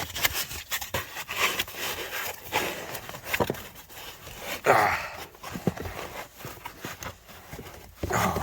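Hands working inside an opened-up Suzuki Vitara dashboard: irregular plastic clicks, scraping and rustling as foam is packed between a loose heater vent tube and the top of the dash to stop it creaking.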